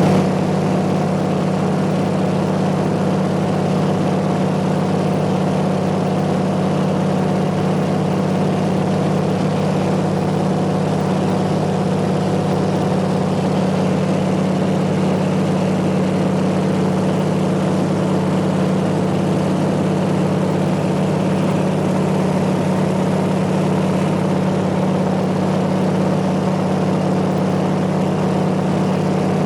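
Small propeller plane's piston engine and propeller running in a steady, unchanging drone in cruise flight.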